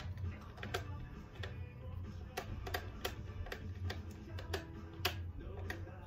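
Background music under irregular light clicks and taps, roughly one every half second to second, from wires being fitted and handled at the screw terminals of a contactor on a motor-control panel.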